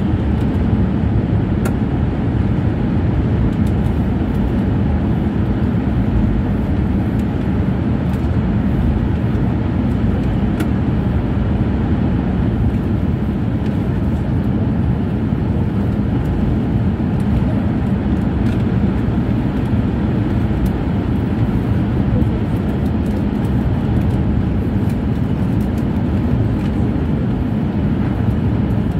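E6-series Komachi shinkansen running along a viaduct, heard inside the passenger car: a steady low rumble of wheels, track and air that holds unchanged throughout.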